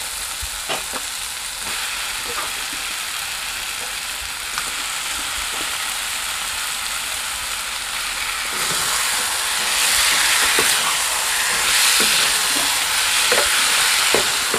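Raw pork pieces and onion-tomato masala sizzling in a kadai. The sizzle grows louder a little past the middle as the pieces are stirred with a spatula, with a few light spatula knocks.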